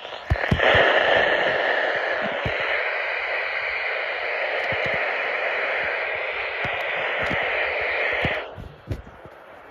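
Radio static: a steady hiss on a received weather-alert broadcast. It comes in sharply just after the start and cuts off suddenly near the end.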